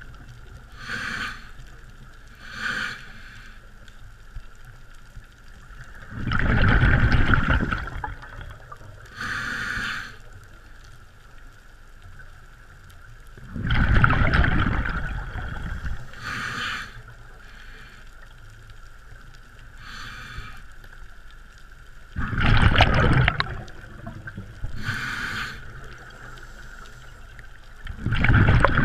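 Scuba regulator breathing underwater: four long, loud bubbling exhalations about every eight seconds, with shorter hissing inhalations between them. A steady high whine runs underneath.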